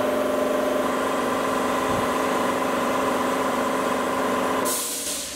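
Shop air compressor running steadily with a droning hum and a whine. It cuts off near the end after a short burst of hiss.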